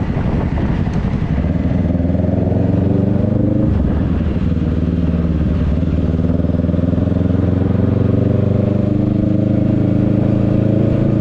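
Kawasaki Ninja 650's parallel-twin engine running under way: the revs climb, drop sharply about three and a half seconds in, then hold and slowly rise again.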